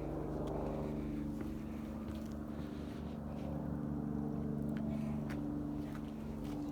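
A steady mechanical hum of several held tones, like an engine or motor running, with a few faint clicks over it.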